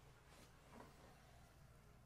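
Near silence: quiet room tone with a low hum and two faint, brief rustles, about half a second and a second in.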